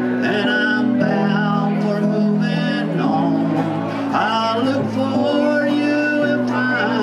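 Live country-style music from a duo: acoustic guitar and electronic keyboard playing steadily, with a voice singing over them.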